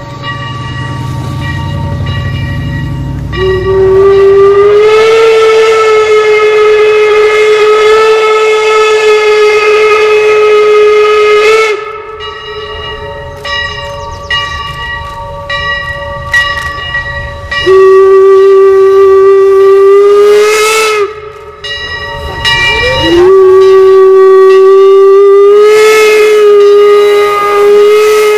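Steam whistle of the replica Leviathan, a 4-4-0 steam locomotive, blowing three long blasts, each a single steady tone that rises slightly as it opens. The first lasts about eight seconds, the second about three, and the third begins about five seconds before the end and is still sounding as it ends. The locomotive's running rumble is heard before the first blast.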